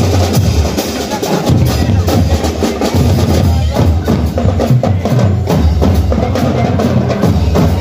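Marching drum and lyre band playing, its bass and snare drums keeping a steady beat.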